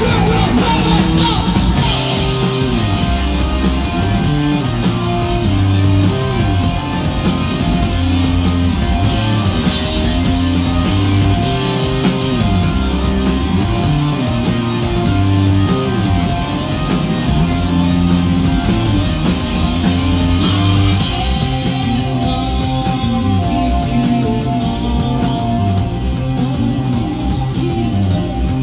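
Live rock band playing loudly: a bass guitar line moving in distinct stepped notes over a drum kit with cymbals, with electric guitar and keyboards.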